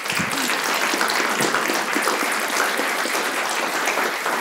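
An audience applauding.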